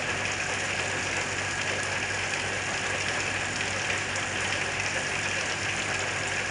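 Heavy rain falling hard in a steady downpour, with a low steady hum underneath.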